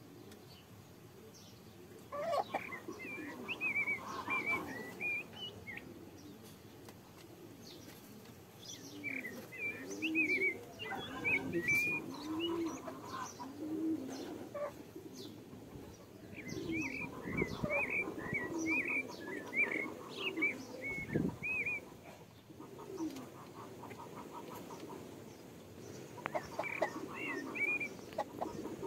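Birds calling in four bouts of quick high chirping, with lower cooing calls through the middle stretch.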